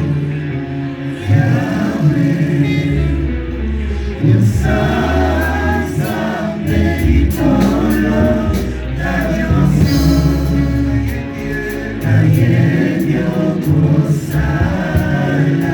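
A choir singing a gospel song over a sustained low bass accompaniment.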